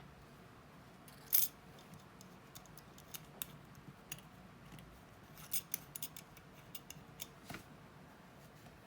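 Small metal tools and watch parts clicking and tapping at a workbench, a scattered run of light sharp clicks with one louder click about a second and a half in and a cluster about two-thirds of the way through, over a faint steady hum.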